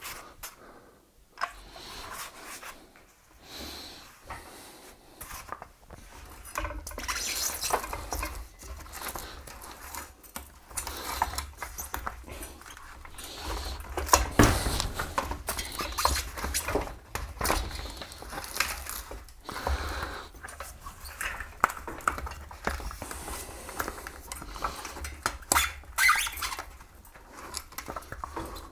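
Hands working a bicycle tire onto its rim: rubber rubbing and scraping with irregular clicks and knocks of the wheel and parts being handled.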